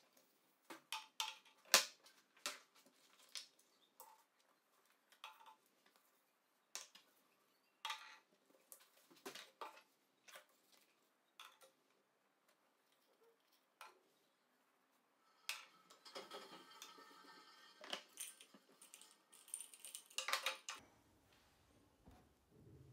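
Small household items being picked up and set down by hand: a string of separate light clicks, knocks and clinks, then a denser stretch of clattering and scraping in the last third.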